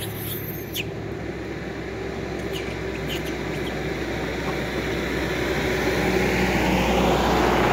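A motor vehicle passing nearby: a steady rumble that slowly grows louder and peaks near the end.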